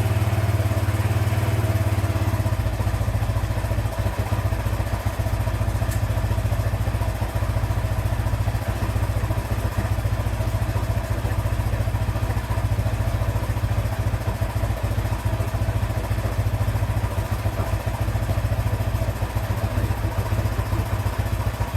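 Arctic Cat H1 650 ATV's single-cylinder four-stroke engine idling steadily, with the carburettor's air screw and idle freshly adjusted to cure a ticking at idle. The idle note shifts slightly about two and a half seconds in.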